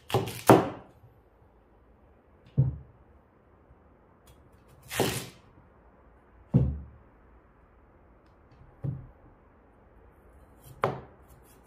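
Kitchen knife cutting through a Korean radish, each cut ending in a knock of the blade on the cutting board. Seven cuts at an unhurried, uneven pace, the first two close together.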